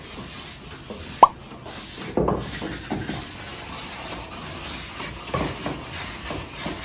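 A single sharp pop with a quick upward pitch sweep about a second in, then scattered knocks and rubbing of small pine frames being handled and sanded by hand on a table.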